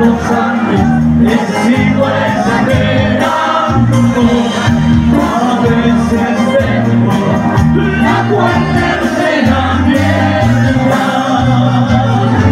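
Live band music with a steady bass line moving under a melody, played without break.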